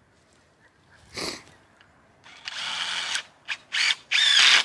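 Power drill driving 3-inch deck screws into white ash poles: one longer run of the motor, then several short stop-start bursts as the screw is driven home.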